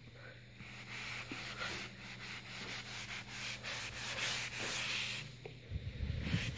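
A sponge rubbing back and forth over painted trim, a scrubbing hiss in repeated strokes. Low thumps near the end.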